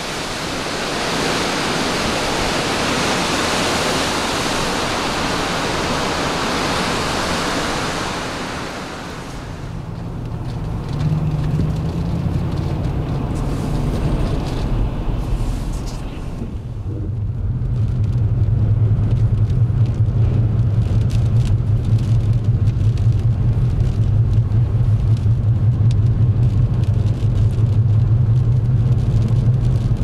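Wind rushing and buffeting loudly for about the first nine seconds, then dying away to leave the steady low drone of the car's engine and tyres heard inside the cabin. The drone grows louder after about seventeen seconds.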